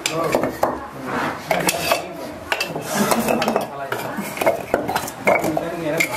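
Loose clay bricks clinking and knocking against one another as they are shifted by hand, a run of sharp, irregular clacks.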